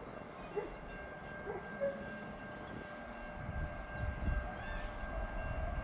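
Distant whistle of the Victorian Railways R class steam locomotive R761: one long, steady, faint note held for about four seconds. Wind gusts on the microphone near the end, with a few bird chirps.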